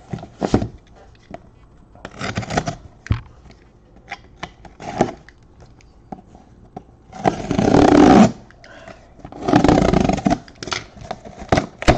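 Sealed trading-card boxes being opened by hand: a run of clicks, scrapes and rustles of plastic wrap and cardboard. Two longer, loud rustling tears of about a second each come about seven and nine and a half seconds in.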